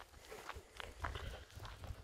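Footsteps crunching and scuffing on a loose gravel dirt road, irregular and faint.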